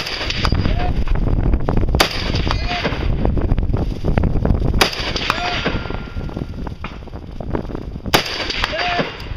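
Rifle firing four single shots, spaced two to three seconds apart. Each shot is followed less than a second later by a short, faint ring. A low rumble runs underneath.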